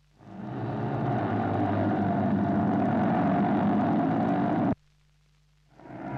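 Several speedway motorcycles racing together, their single-cylinder engines running at high revs. The sound cuts off suddenly about three quarters of the way through and fades back in just before the end.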